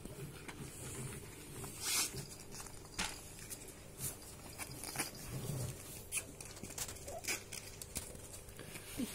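Ferret kits scrabbling and moving about on soft blankets: rustling with scattered small clicks and taps.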